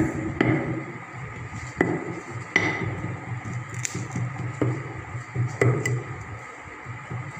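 Hand rammer tamping green moulding sand into a foundry moulding box: a series of dull, irregularly spaced knocks, about eight in all.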